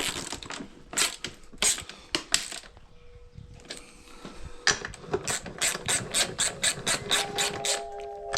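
Socket ratchet clicking as the motorcycle's subframe bolts are tightened: a few separate clicks, a pause, then a quick even run of clicks, about five a second.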